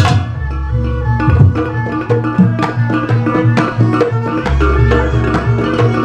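Javanese jaranan campursari ensemble music: kendang hand drums played with a violin and held melodic tones. A hard drum stroke opens the passage, and a deep low note is held twice.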